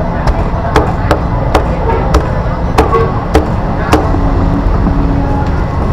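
Cleaver chopping on a wooden chopping block: a string of sharp, irregular strikes, roughly two a second, that stop about four seconds in, over a steady low background rumble.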